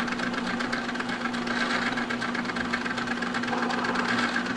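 Manrod MR 301 bench lathe running steadily: a constant motor and gear hum with a fine, rapid rattle.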